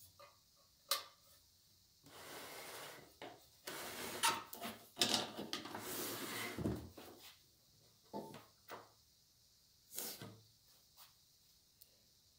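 Handling noise from an SK11 SWB-300W benchtop band saw being worked on and shifted on a wooden workbench with its motor off: a sharp knock about a second in, several seconds of scraping and rubbing with knocks in the middle, and another knock later on.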